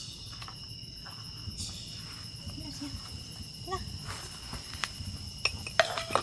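Crickets chirping steadily and continuously. Near the end a food bowl is set down on the ground with a few sharp clicks, the loudest sounds here.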